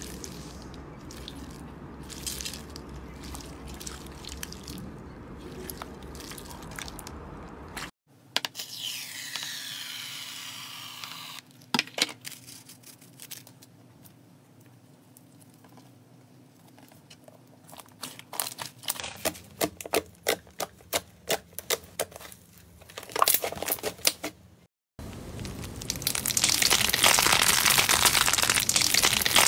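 Hands playing with slime, in several short clips. First, foam-bead slime is pressed, with soft scattered crackling. Then clear slime is stretched with a run of sharp pops and clicks, and from about 25 seconds in, crunchy bead-filled slime gives a loud, dense crackle as it is squeezed.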